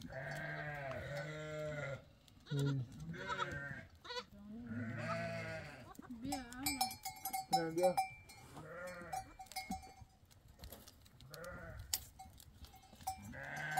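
Goats bleating, one wavering call after another, about eight calls in all with short gaps between them.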